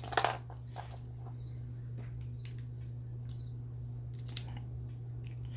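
Scattered faint clicks and light rubbing of plastic Beyblade toy parts being handled, over a steady low hum.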